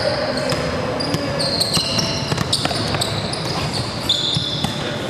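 Basketball bouncing and sneakers squeaking sharply on a hardwood gym court during fast play, with scattered thuds from the ball and players' feet.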